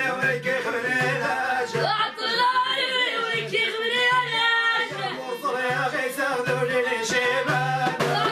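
A woman singing a folk song, accompanied by a violin bowed upright on the player's knee and a hand frame drum keeping a steady beat.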